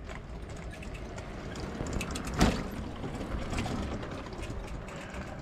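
Clicks and rattling of metal parts as a bike trailer is handled, with one sharp knock about two and a half seconds in.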